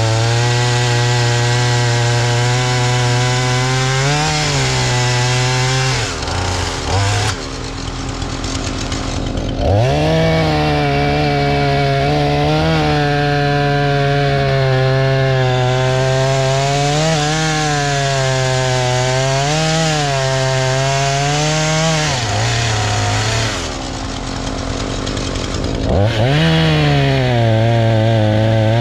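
Husqvarna 435 two-stroke chainsaw cutting firewood logs at full throttle, its pitch sagging and recovering as the chain bites. It drops back toward idle about six seconds in and again a little after twenty seconds, then revs up to cut again.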